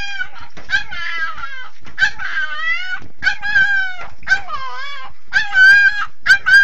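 Puppy crying in a string of high, drawn-out whining yelps, about one a second, several falling in pitch at the end, which sound like 'anne' (Turkish for 'mom').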